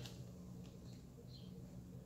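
Quiet room tone with a steady low hum and a faint click at the start.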